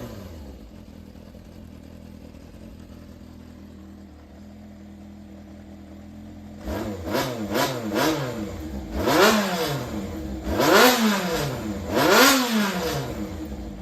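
Yamaha XJR400 inline-four engine idling steadily, then revved in six quick throttle blips, three short ones followed by three bigger ones, each rising and falling back to idle. The seller presents it as running strongly with no abnormal noise.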